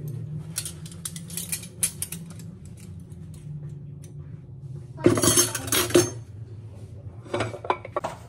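Metal cutlery clinking against itself and against ceramic plates as it is handled and set down. Light scattered clinks come first, then a louder cluster about five seconds in and another near the end.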